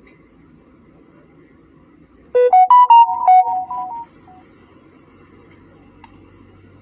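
A short electronic jingle: a quick run of about eight to ten bright notes stepping up and down in pitch. It starts a little over two seconds in and lasts under two seconds.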